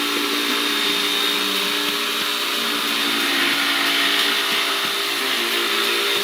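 An electric jigsaw running steadily, its motor giving a continuous high whine.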